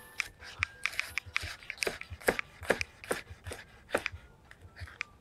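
Chef's knife slicing okra into rounds and striking a wooden cutting board: a quick, uneven run of short strokes, several a second, that stops near the end.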